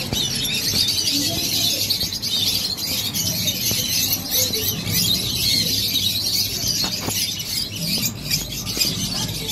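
A roomful of caged lovebirds chattering, with many overlapping shrill chirps and squeaks running on without a break.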